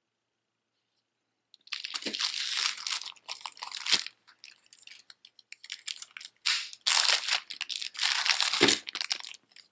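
Crinkling, rustling handling noise in irregular bursts as costume jewelry is pulled out and sorted by hand, with a few soft knocks. It starts a couple of seconds in.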